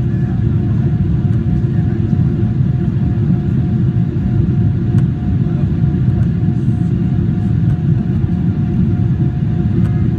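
Steady low rumble inside the cabin of a Boeing 777-300ER, its GE90 engines and airflow running evenly, with a faint steady whine over it.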